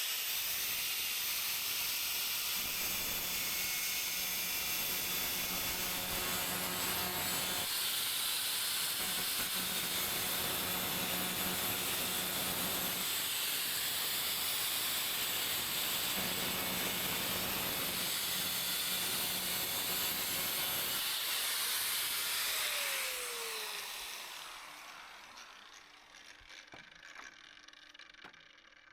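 Angle grinder grinding a steel blade to sharpen it: a steady, harsh grinding noise for about twenty-three seconds, then the grinder is switched off and winds down with a falling whine.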